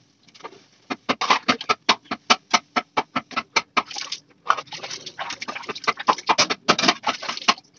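Dishes being hand-washed: a plastic plate scrubbed with quick rasping strokes, about four or five a second, with water splashed from a bucket partway through.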